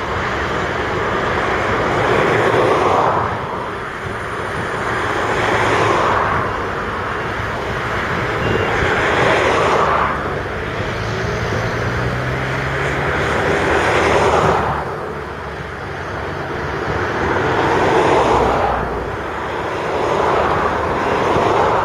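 Diesel engines of heavy earthmoving machinery, articulated dump trucks and excavators, working under load. The engine noise swells and fades every few seconds, and faint reversing beeps come in here and there.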